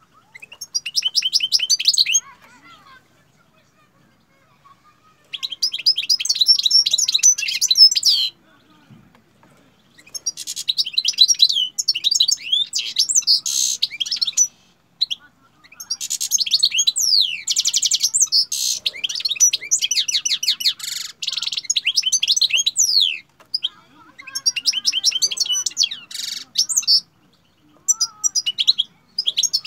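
Caged European goldfinch singing: long twittering phrases of rapid, high chirps and trills, broken by pauses of one to two seconds.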